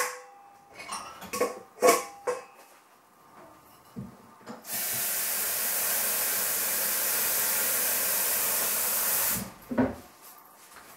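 A few clinks and knocks of crockery, then a steady hiss of water running from a kitchen tap for about five seconds, cut off suddenly, followed by a single knock.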